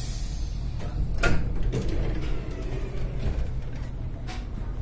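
A passenger train's sliding door opening: one loud clunk about a second in, then a few fainter clicks and knocks over the steady low rumble of the stopped train.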